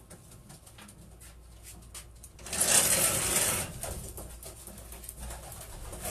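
Racing pigeons' wings flapping in a loud clattering burst of about a second, a couple of seconds in, as a bird is grabbed in the loft. Light clicking and rustling come before and after it.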